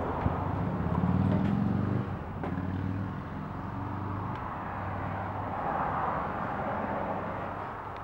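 A steady low mechanical hum, as of a motor or engine running, under a noisy hiss with a few faint clicks. It is loudest for the first two seconds, then drops and carries on more faintly.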